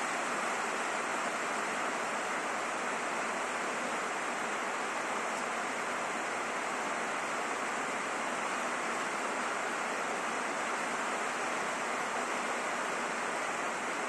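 Steady rain falling on a roof: an even, unbroken hiss.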